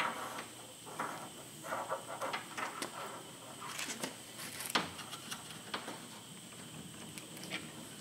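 Rustling and small clicks of hands handling thin wires and crimp connectors, with one sharper click a little before five seconds in.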